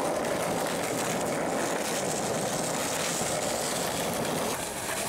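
Skateboard wheels rolling over concrete pavement: a steady, even rumble.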